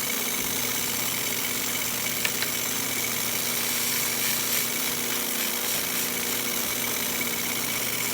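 Benton cutter grinder's electric motor and wheel running with a steady hum and hiss as a small steel engraving cutter is ground lightly against the wheel to form the bevel on its nose. There are two faint ticks a little over two seconds in.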